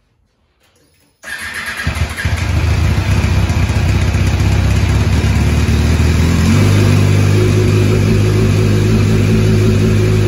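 MV Agusta F4 inline-four sport bike engine starting: about a second in it cranks and catches, runs unevenly at first, then settles into a steady idle from about six seconds in.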